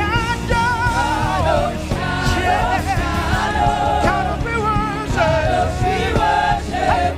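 Live gospel worship music: singing voices holding a wavering melody with vibrato over a steady band accompaniment.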